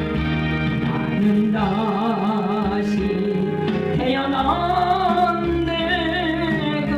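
Music with singing: a voice holding long notes with a wide vibrato over steady sustained accompaniment.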